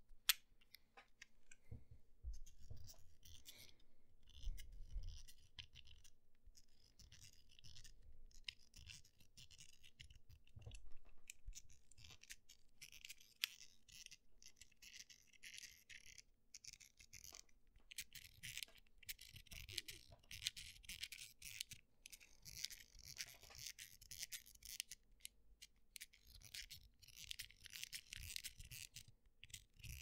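Fidget Cube's little wheel being rolled by hand close to the microphone: a faint, continuous stream of fine rapid clicks and scratches. A few soft low handling thumps come in the first few seconds and again about ten seconds in.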